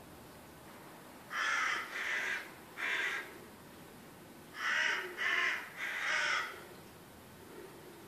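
Crow cawing: six harsh caws in two sets of three, the first set starting about a second and a half in, the second at about five seconds.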